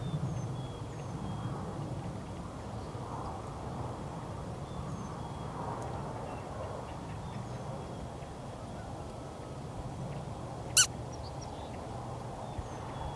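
Quiet open-field ambience with a faint low hum and scattered faint bird chirps, broken once by a single sharp click near the end.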